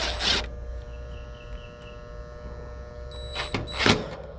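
A power driver whirs briefly at the start, running in the screw of the bracket that holds a new HVAC run capacitor. A steady hum follows, and two sharp knocks come near the end, the second the louder.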